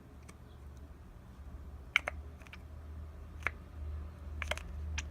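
A few sharp, scattered clicks and taps from handling the clear-glue bottle and measuring cup while squeezing out glue, over a low steady hum.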